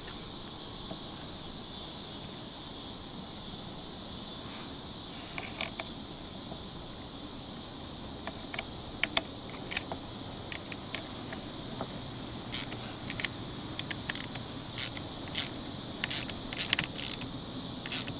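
Steady high-pitched chirring of insects throughout. From about halfway on, a scatter of short sharp clicks and taps from hands-on work on the truck door's weatherstripping.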